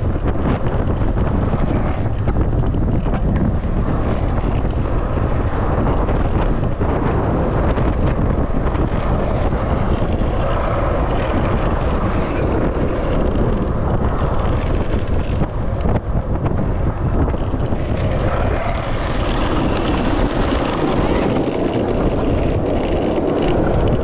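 Wind buffeting the microphone at downhill longboarding speed, over the steady rumble of longboard wheels rolling on rough asphalt.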